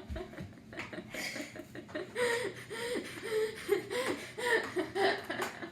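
A girl laughing, a string of short repeated 'ha' sounds, about three a second.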